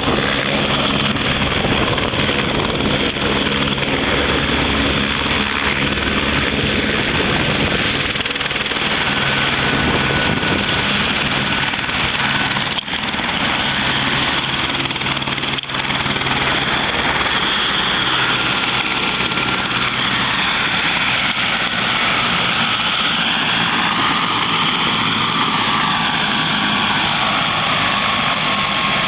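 Light helicopter running on the ground at idle, rotor turning, giving a steady engine-and-rotor din with a faint high whine that sinks slowly in pitch in the latter part.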